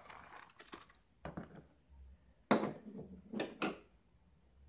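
Hot water poured briefly from a small cup into an open foil food pouch, followed by a few sharp knocks and rustles as the cup and pouch are handled. The loudest knock comes about two and a half seconds in.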